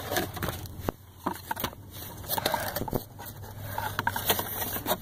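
Handling of the cardboard box and its contents: scattered light clicks, rustles and scrapes over a faint low steady hum.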